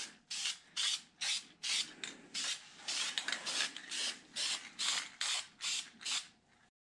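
Aerosol spray can of gloss black engine enamel hissing in short, even puffs, about two or three a second, dusting on a light base coat. The sound cuts off near the end.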